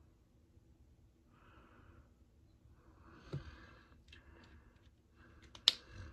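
Soft breaths close to the microphone, broken by two sharp clicks: one about three seconds in and a louder one near the end, as small makeup items are handled on the desk.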